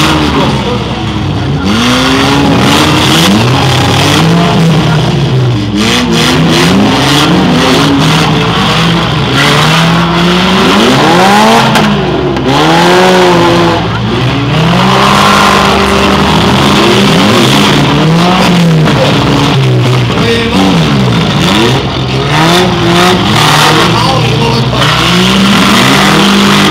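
Several demolition derby cars' engines revving hard, their pitch rising and falling again and again as the cars reverse and charge. Now and then a sharp crash sounds as cars ram each other.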